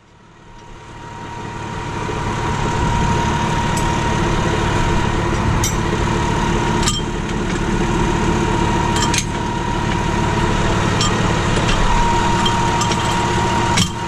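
Tractor's diesel engine idling steadily, fading in over the first couple of seconds, with a steady high whine running through it. Several short metallic clicks and knocks come from the three-point linkage as the plough is hitched on.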